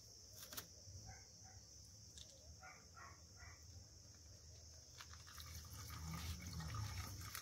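Milk pouring from a torn plastic pouch into a plastic blender jar, a faint liquid splash that starts about five seconds in and grows a little louder; before it, only faint handling of the pouch.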